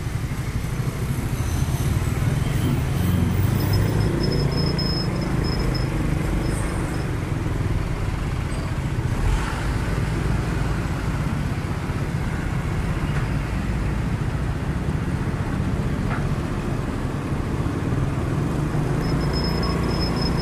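Motorcycle engine running and steady road-traffic noise, heard from the motorcycle's seat while riding slowly among trucks. A thin, high steady tone sounds briefly twice, about four seconds in and near the end.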